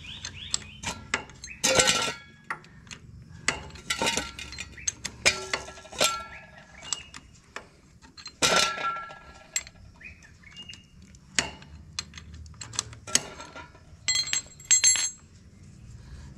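Box spanner working on the tight oil drain bolt of a Bajaj Pulsar 150 engine: a series of irregular sharp metallic clinks and taps, several ringing briefly, as the tool is fitted and turned against the bolt.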